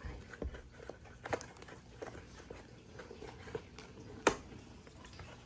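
Scattered light taps and knocks from handling things in a small room, with one louder knock about four seconds in.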